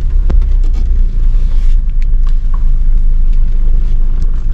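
Parked car's engine idling, a steady low rumble heard from inside the cabin, with a few light clicks over it.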